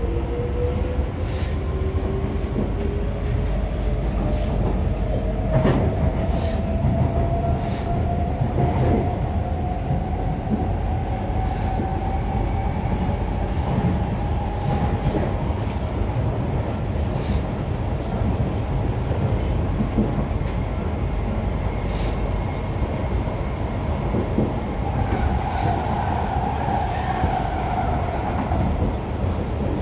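C151A metro train accelerating, heard from inside the car: the traction motor whine rises steadily in pitch over about fifteen seconds above a constant rumble of wheels on track, with scattered clicks. A brief higher squeal, typical of wheels on a curve, comes near the end.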